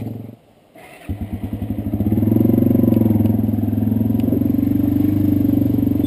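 Small petrol engine of an off-road vehicle. The sound drops out briefly, then the engine comes back in with slow, separate firing beats that quicken. From about two seconds in it runs steadily at higher revs.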